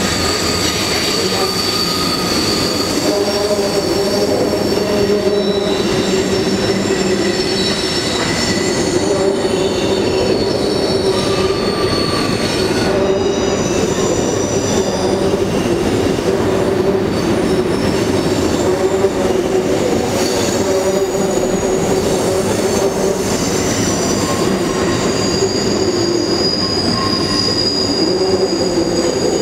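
Cars of a CP freight train rolling steadily across a steel trestle bridge: a continuous rumble of steel wheels on rail, with high, sustained wheel squeals that drift in pitch and come and go.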